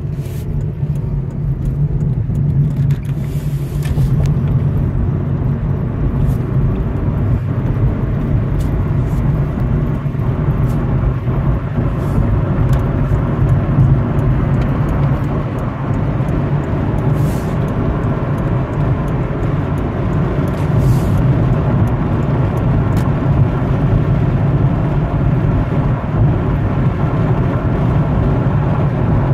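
Road and engine noise heard inside a Honda Civic's cabin as it picks up speed from about 13 to 66 mph: a steady low rumble with tyre hiss, growing louder over the first few seconds, then holding steady at highway speed.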